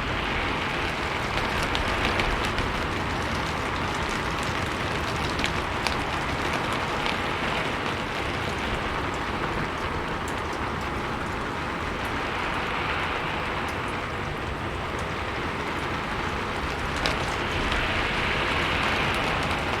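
Steady rain falling on a rooftop: a dense even patter with many individual drops ticking, swelling slightly now and then.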